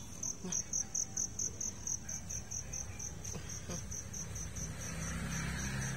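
A cricket chirping steadily, a high-pitched pulsed trill repeating about five times a second.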